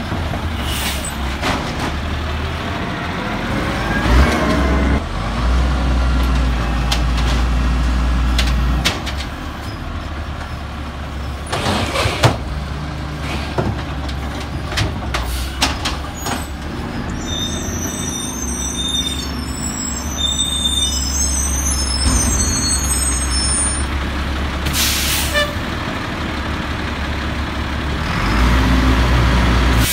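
A Peterbilt garbage truck with an Amrep automated side loader runs steadily, its engine rising in pitch a few seconds in. Several short air-brake hisses cut through the engine sound.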